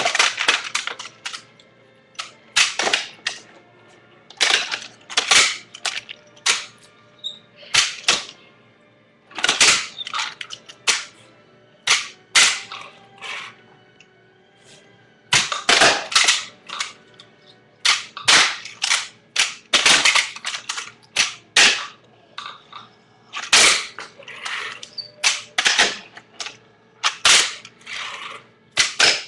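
A fingerboard clacking on a tabletop as tricks are done with the fingers: sharp pops of the tail and wheels landing, in quick clusters of several clicks with short pauses between.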